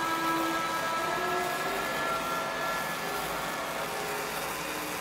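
Handheld gas torch burning steadily, its flame hissing as it scorches the wood of the bowl's rim.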